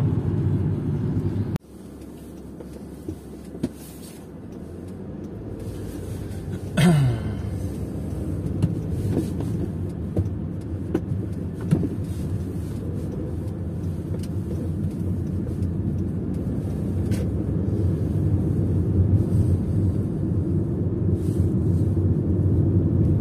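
Road and engine rumble inside a moving car's cabin. About a second and a half in, the noise drops suddenly, then slowly builds back up. A short sound falling in pitch, the loudest moment, stands out about seven seconds in.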